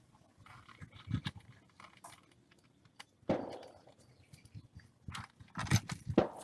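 Metal tools and parts clinking and knocking irregularly, with the loudest knocks bunched near the end.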